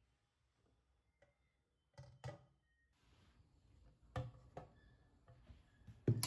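Faint, scattered clicks and knocks, about half a dozen short sounds, as of objects being handled, with the loudest pair near the end.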